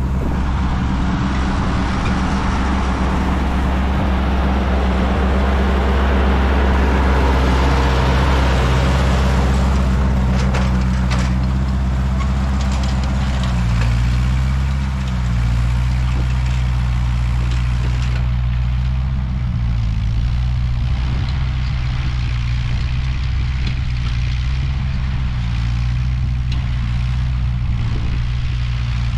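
Ford 8N tractor's four-cylinder flathead engine running steadily under load, pulling a cultivator through the ground. The engine note dips briefly and recovers about halfway through.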